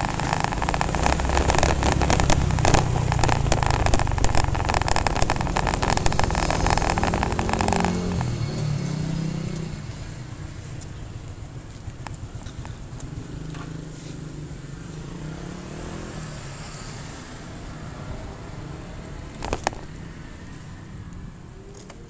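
Honda Revo single-cylinder four-stroke motorcycle being ridden, its engine mixed with wind buffeting on the phone's microphone. About eight seconds in, the noise drops and the engine note falls away as the bike slows to a stop. A quieter low engine sound follows, with one sharp click near the end.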